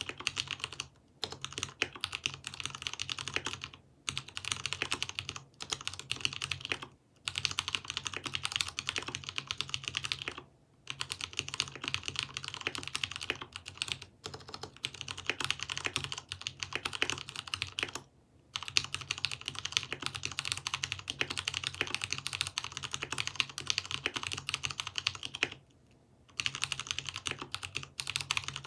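Fast typing on a Poker 3 mechanical keyboard with Cherry MX Brown tactile switches, spray-lubricated with Super Lube to quiet the spring noise; a dense run of keystroke clicks with brief pauses every few seconds.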